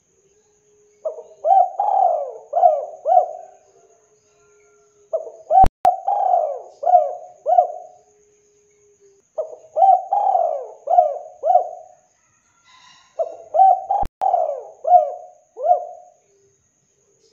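Spotted dove (tekukur) cooing in four phrases, each a run of four or five coos lasting two to three seconds, with a phrase about every four seconds.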